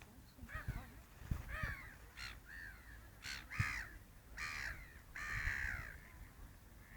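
Birds squabbling over food, giving a run of harsh cawing calls, roughly one every half second, with the longest and loudest call about five seconds in.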